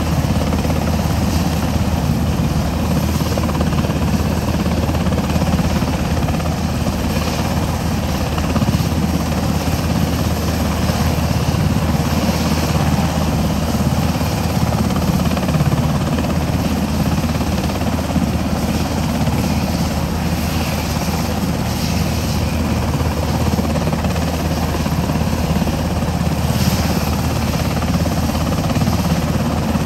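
UH-60M Black Hawk helicopter running on the ground before lift-off: its engines and four-blade main rotor make a steady, even din with a constant low beat that neither rises nor falls.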